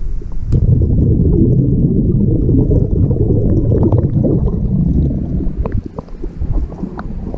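Underwater bubbling and gurgling rumbling against a GoPro's waterproof housing, with scattered small clicks. It eases off about six seconds in as the camera comes up to the water's surface.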